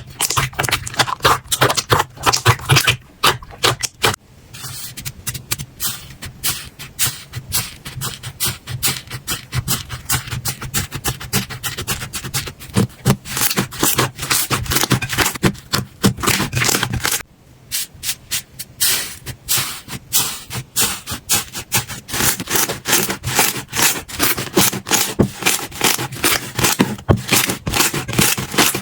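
Slime being handled, making dense, rapid crackling and clicking. It changes abruptly about four seconds in and again after about seventeen seconds, as one clip gives way to the next.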